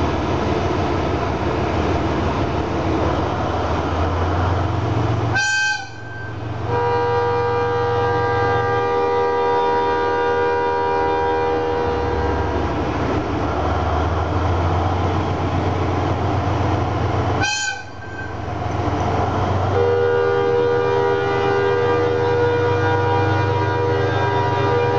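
Diesel locomotive running with a low engine rumble as it draws in, sounding its horn twice in long, steady multi-tone blasts. The first starts about a quarter of the way in and fades over several seconds; the second starts about four-fifths of the way through and is still sounding at the end.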